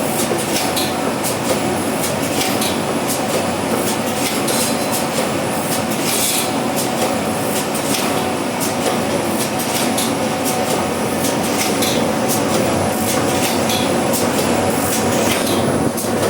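Automatic multicolour screen printing machine running, a steady mechanical clatter with frequent sharp clacks and knocks.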